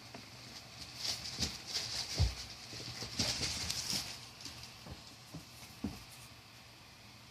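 Kittens at play: irregular light thumps and scrabbling patter, with the loudest thump about two seconds in, dying down around six seconds in.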